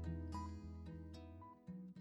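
Background music of plucked strings, notes picked about two a second over a low sustained tone, fading out toward the end.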